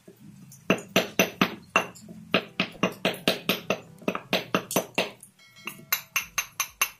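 Hammer tapping repeatedly on a cast lead fishing sinker held in the hand: quick, sharp metallic clinks about three to four a second, with a brief pause near the end before a few more strikes.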